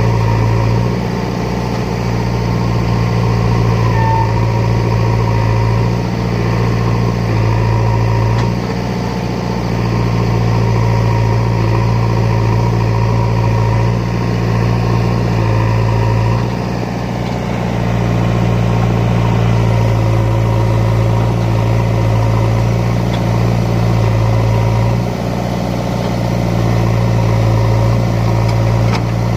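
Heavy diesel engine running steadily under a loud, even hum, its note dropping briefly about every eight seconds as the load changes.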